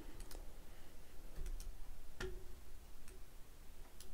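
Faint, scattered clicks of a computer mouse, about six over four seconds, the sharpest a little past the middle.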